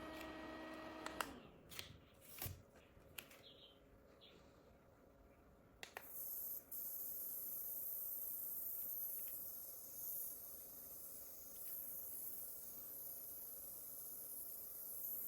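Mini handheld spray fan: its small motor hums and cuts off about a second in with a click. A few more clicks from the buttons and housing follow. About six seconds in, another click starts a steady high hiss.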